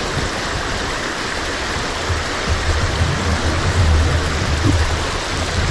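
Small rocky brook rushing over rapids: a steady wash of running water, with a low rumble that grows heavier about halfway through.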